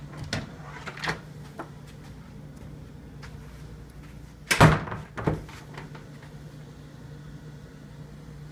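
A wooden door with a metal lever latch being worked: a few light knocks at first, then a loud clunk about four and a half seconds in and a second, smaller clunk just after, over a steady low hum.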